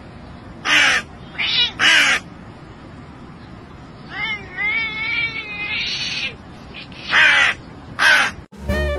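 A hooded crow caws in short harsh calls, three in the first couple of seconds and two more near the end. Between them a cat answers with a drawn-out, wavering meow.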